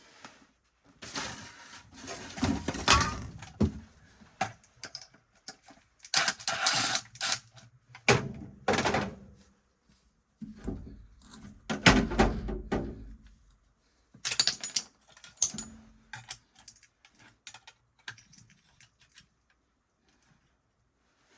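Tools and metal parts being handled, heard as irregular bursts of clattering and clicking with short quiet gaps. The loudest bursts come about three, seven and twelve seconds in.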